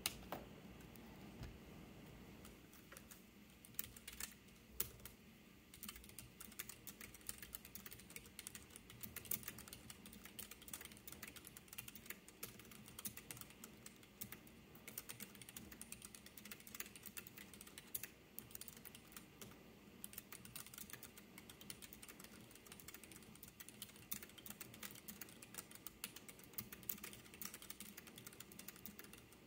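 Gentle typing on a Keychron K3 low-profile keyboard with red optical switches: quiet, rapid key clicks, several a second.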